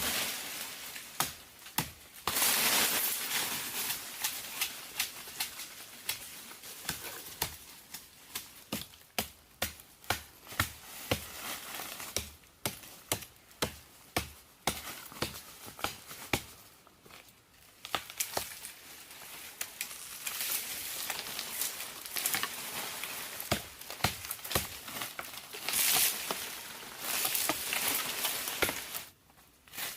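Irregular sharp clicks and snaps, several a second at times, over rustling, crinkling noise that comes and goes.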